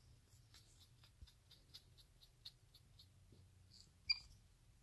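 Capuchin monkey giving a run of faint, high squeaks, about four a second, then one louder, sharp high chirp near the end.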